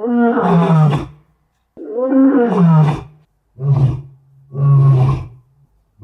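A lion calling in four separate calls with short gaps between, the first two long and sliding down in pitch, the last two shorter and lower. Presented as the last breaths of a dying lion.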